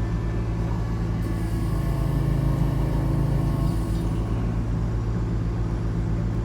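Heavy equipment engine running steadily at close range, working a little harder for a couple of seconds from about one and a half seconds in.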